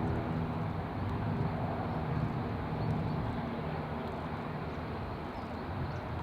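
Steady outdoor rumble of road traffic, with a passing vehicle's engine hum fading away in the first second. Faint high bird chirps come through now and then.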